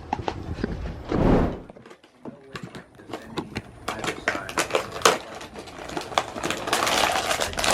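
Blind-box packaging being handled: scattered small clicks and taps of cardboard and plastic, building near the end into a denser crinkling of a wrapper as the next box is opened.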